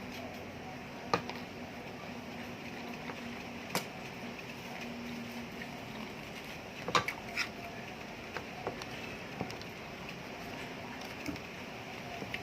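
Eating sounds from a mukbang meal of fried chicken: a handful of short, sharp clicks and taps scattered over a steady background hiss.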